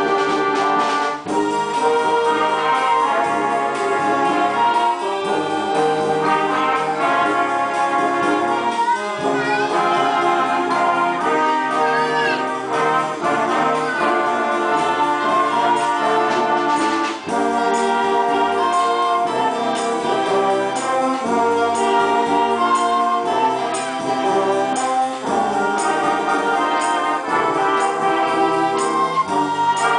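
Community concert band playing: woodwinds (clarinets, bassoon, saxophone) and brass together, holding sustained chords and moving through melodic phrases, with a brief break about halfway through.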